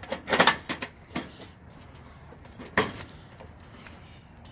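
A length of aluminum seamless gutter being pulled and handled, clattering and knocking several times, with a cluster of sharp knocks in the first half-second and one loud knock near the end of the third second.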